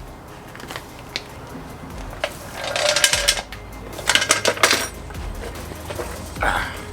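Clicks and clattering of hard parts and tools being handled, in two louder spells of rattling with scattered single clicks between.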